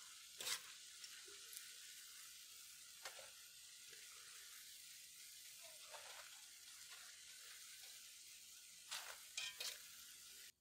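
Spoonfuls of corn-dog batter deep-frying in hot oil in a cast-iron pot, a faint steady sizzle. A few light clinks of a metal skimmer and ladle against the pot are heard as fritters are lifted out, several close together near the end.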